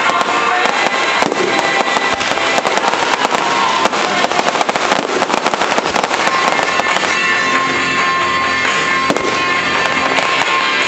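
Aerial fireworks bursting and crackling in quick succession, thickest in the first half, with music playing under the bangs.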